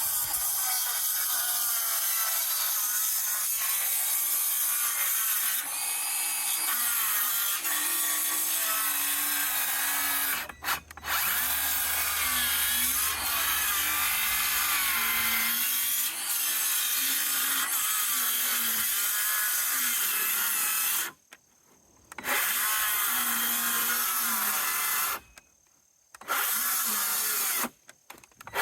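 Power saw cutting through wood. Its motor whine wavers under load, with a brief break about ten seconds in and three short stops and restarts in the last eight seconds.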